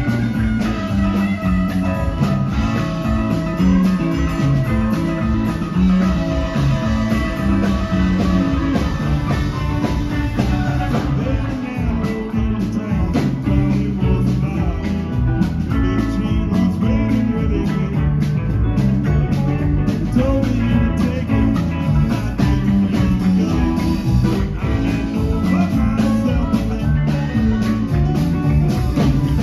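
Live rock band playing: electric guitars, bass guitar, keyboard and drum kit together, with a steady drum beat under a moving bass line.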